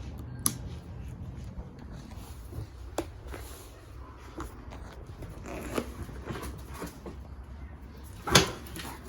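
Scattered clicks and knocks of hands-on work, with one loud clunk about eight seconds in, over a low steady hum; no engine is running.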